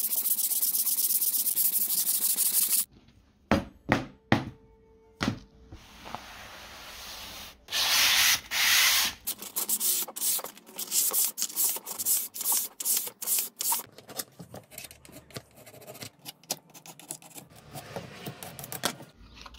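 Sandpaper scrubbing the surface of 3D-printed PLA+ sword parts. It starts with one long continuous stretch of sanding, followed by a few taps and a quieter lull. Two loud strokes come about eight seconds in, then quick, short back-and-forth scratches.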